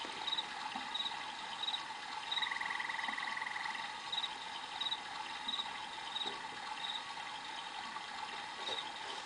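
Night insects, crickets, chirping steadily: a short high chirp repeating about every two-thirds of a second, with a rapid lower trill from about two and a half to four seconds in.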